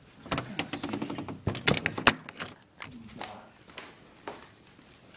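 Handling knocks and thuds from a handheld recording device carried by someone walking, with footsteps: a rapid cluster of clicks and thunks in the first two and a half seconds, the two loudest about two seconds in, then a few single knocks.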